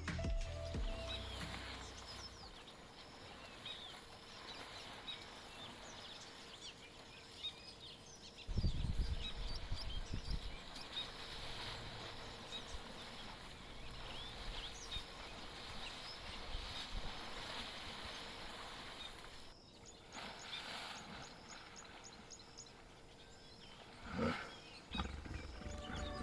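Outdoor bush ambience of many birds chirping and calling over a faint steady tone. A louder low rumble sets in about eight seconds in, and a short louder sound comes near the end.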